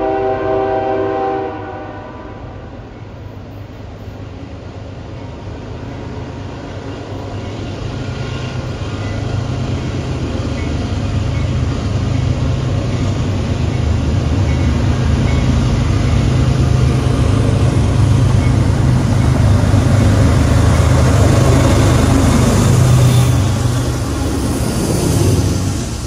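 A CSX freight train's locomotive horn sounds a chord that cuts off about a second and a half in. Then the train's diesel locomotives and cars rumble, with a low steady engine drone, building over about fifteen seconds as the train approaches and passes, and dropping off shortly before the end.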